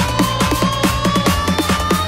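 Electronic dance music with a fast, even drum beat, a deep bass line and a synth tone that rises slowly in pitch.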